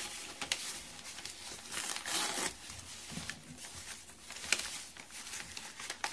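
Packing material rustling and crinkling in uneven handfuls as a shipped plant cutting is unwrapped, with a sharp click a little past halfway.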